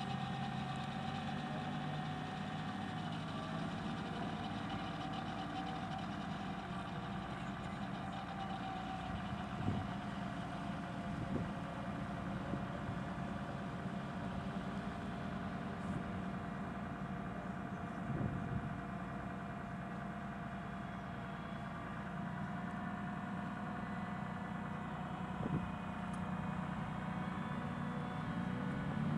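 LAV-25 light armored vehicle's Detroit Diesel 6V53T two-stroke diesel engine running steadily as the vehicle drives into the water and swims away, with a few faint knocks.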